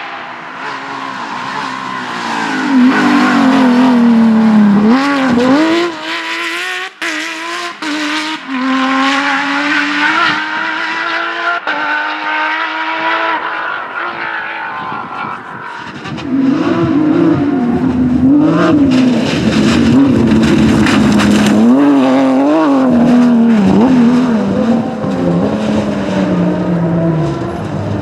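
Porsche 911 GT3 rally car's flat-six engine at full race revs, its pitch rising and falling with gear changes and throttle lifts. It is loud for the first few seconds, drops back for a stretch, then is loud again from about halfway with repeated quick rises and falls in pitch.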